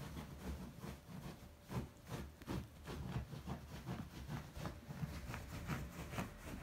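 A Bedlington terrier digging and scratching at a padded dog bed with its paws, a rapid, irregular run of fabric scuffs and rustles: the dog's nesting before it lies down to sleep.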